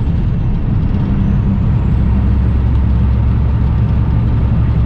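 Semi truck's Cummins ISX diesel engine at highway cruise, heard inside the cab as a steady low drone over road and tyre noise.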